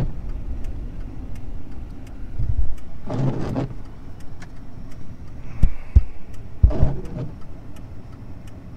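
Inside a 2004 Mercury Grand Marquis: a low engine and road rumble, with short bursts of a man laughing about three seconds in and again near seven seconds, and a couple of dull thumps around six seconds.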